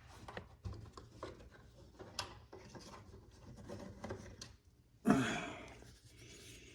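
Small tools and boxes being handled in a machinist's toolbox drawer: light clicks and taps, with a louder rustling scrape about five seconds in.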